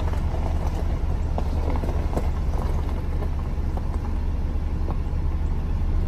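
A vehicle driving slowly over a rough farm track, heard from inside: a steady low rumble of engine and tyres, with a few light knocks and rattles.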